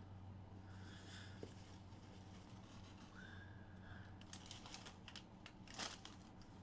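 Near silence with a steady low hum, and faint rustles and light ticks from a sneaker being handled, with one sharper click about six seconds in.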